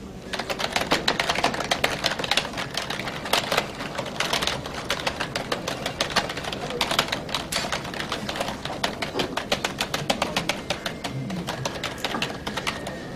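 Fast typing on a computer keyboard: a rapid, continuous flurry of key clicks that stops near the end, where a faint high steady tone comes in.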